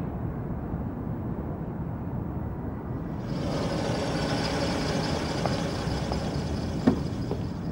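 Street traffic: a steady low rumble of passing vehicles. A brighter hiss joins about three seconds in, and there is one short click near the end.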